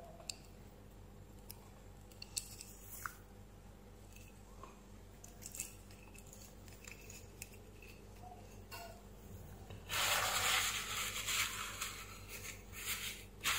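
Faint clicks and taps of a cordless drill's plastic gearbox housing and its metal gear parts being handled, then, about ten seconds in, a couple of seconds of louder rubbing and scraping.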